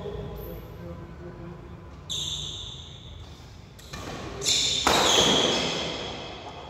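Badminton doubles rally in a large hall: sharp hits about two seconds in and again a little after four seconds, each leaving a high ringing tone, from rackets striking the shuttlecock and shoes squeaking on the court floor. A louder burst of noise comes about five seconds in.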